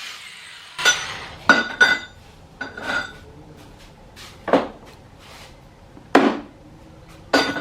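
Steel pieces clanking and being knocked, about eight irregular strikes, several with a short metallic ring.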